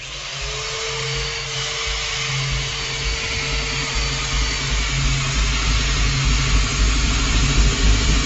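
Electric power drill switched on, its motor quickly rising in pitch and then running continuously at speed, getting gradually louder.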